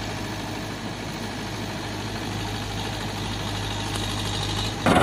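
Steady engine idling drone, a sound effect laid over hand-played plastic toy vehicles. A louder sound cuts in abruptly right at the end.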